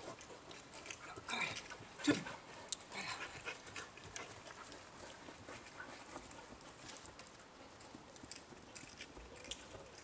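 A dog barking a few short barks, about one and two seconds in.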